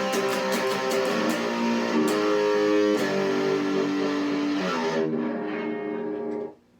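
Electric guitar played through an amplifier, strummed chords and picked notes ringing. The sound cuts off suddenly near the end.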